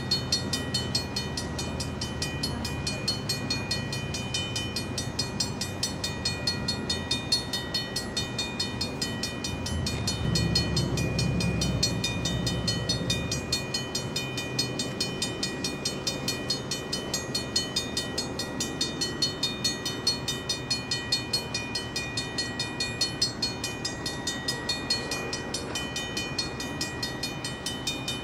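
Railroad crossing warning bell ringing continuously in rapid, even strikes. A low rumble swells and fades about ten to thirteen seconds in.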